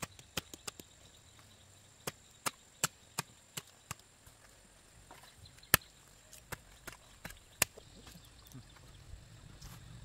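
Hand hoe striking hard soil in short runs of blows, about three a second, with pauses between the runs.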